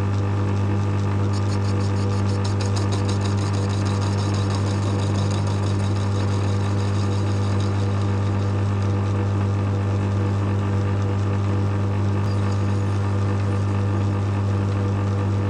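Small metal lathe running steadily with a loud, even hum while turning brass fixings to clean up their heads. A faint rapid ticking comes through for a few seconds about a second in.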